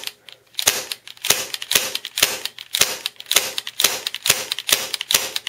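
CO2 gas airsoft pistol, Ruger-marked, firing BBs rapidly: a quick, even run of sharp pops, about four a second.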